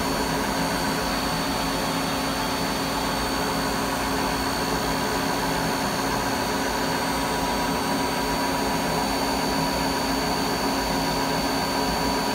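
CNC milling machine running with its spindle turning an edge finder: a steady mechanical hum with a constant high-pitched whine.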